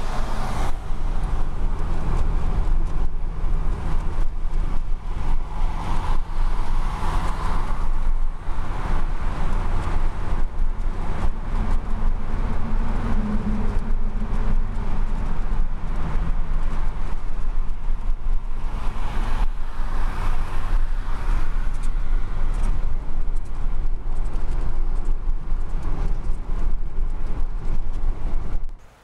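Steady road noise inside a car's cabin at highway speed: a continuous low rumble of tyres and engine with a broad hiss of wind and road. It cuts off abruptly just before the end.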